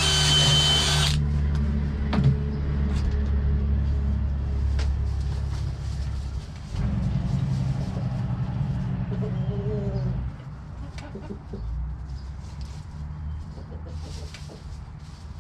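A power drill boring a hole in a bucket stops about a second in. A steady low hum carries on, and chickens cluck faintly later on.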